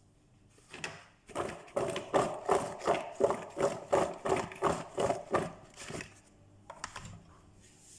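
Pepper-seasoned potato and carrot chunks tossed in a plastic bowl, the pieces clattering against the bowl's sides in a steady rhythm of about three shakes a second, dying away about six seconds in.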